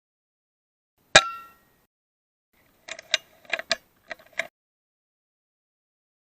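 A single shot from an FX Maverick .22 PCP air rifle about a second in, a sharp crack with a short metallic ring. About two seconds later comes a quick run of mechanical clicks and clacks as the rifle's action is cycled to chamber the next pellet.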